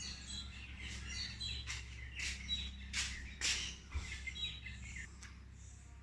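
Small birds chirping in rapid, overlapping short calls, thinning out near the end, with a few sharp noisy clicks mixed in and a low steady hum underneath.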